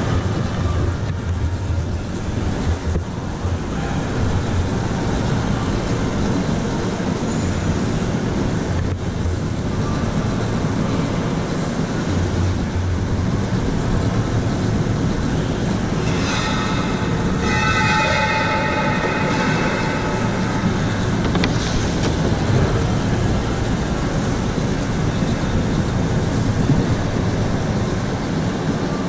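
Electric go-kart running on an indoor track: a steady rumble of motor and tyres. About two-thirds of the way through, a high squeal with several tones sounds for a few seconds.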